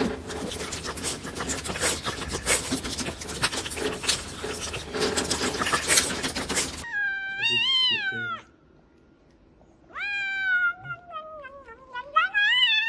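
A loud crackling, rustling noise for about seven seconds cuts off abruptly. A domestic cat then gives two long, drawn-out meows a second or so apart, each sliding up and then down in pitch.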